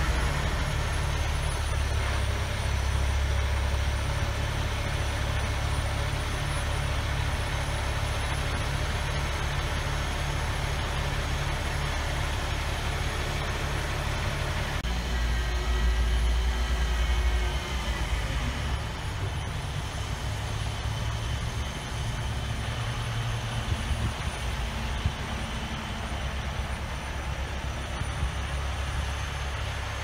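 Diesel engine of a truck-mounted crane running steadily under load while it lowers a cut tree trunk on its hook line, rising in pitch and getting louder for a couple of seconds about fifteen seconds in.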